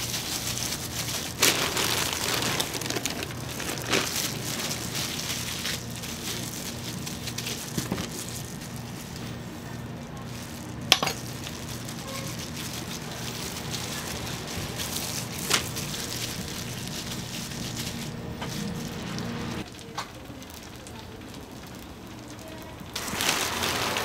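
Hotteok frying in oil on a griddle: a steady sizzle, with a few sharp clicks along the way.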